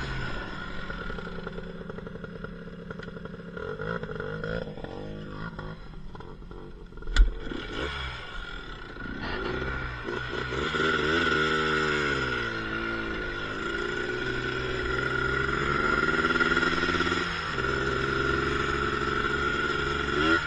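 ATV engine running on a trail, its pitch climbing and dropping as the throttle is worked, with rattling from the machine. A single sharp knock about seven seconds in.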